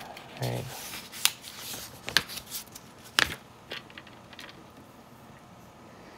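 Plastic LEGO pieces clicking and rattling on a tabletop as they are picked up and handled: a handful of sharp clicks, the loudest about three seconds in, then only faint handling noise.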